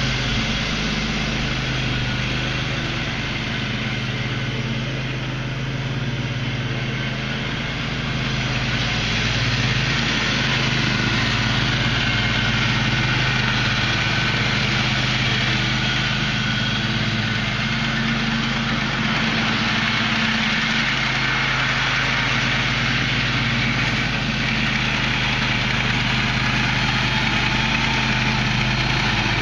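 The 22 HP engine of a Husky riding lawn mower running steadily, a little louder from about nine seconds in.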